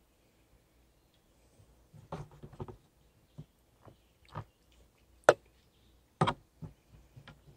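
A spoon clinking and scraping against metal camping bowls as food is served: scattered clicks and knocks that start about two seconds in, with the sharpest clink a little past five seconds and another pair around six seconds.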